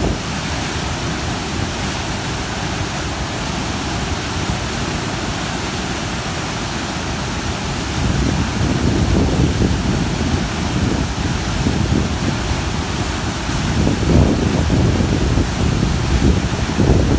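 Rough river water rushing steadily, a dense roar that swells louder and deeper about halfway through and again near the end.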